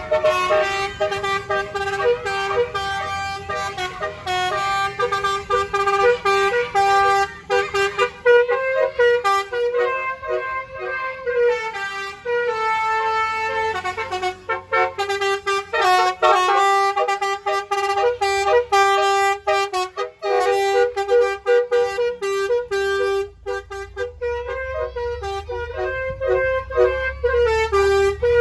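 An angkot's telolet horn, a set of tuned air horns, playing a melody note by note with a few short breaks.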